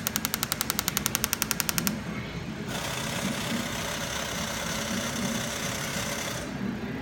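A machine powering up makes an odd sound at boot: a rapid, even clatter of sharp clicks, about twelve a second for some two seconds, then a steady hiss for several seconds over a faint low hum.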